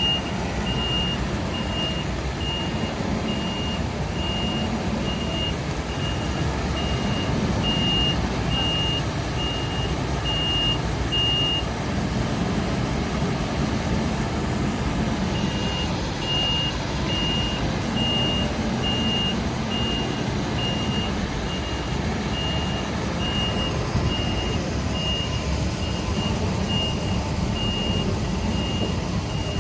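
Merlo telescopic handler's reversing alarm beeping in even, high single-pitch beeps over its running diesel engine. The beeping stops for a few seconds a little before halfway, then starts again as the machine reverses once more.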